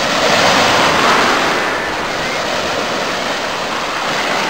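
Steady rushing of sea surf and water, a little louder in the first second.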